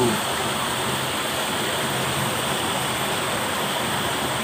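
Steady rushing of running stream water, an even hiss that holds at one level.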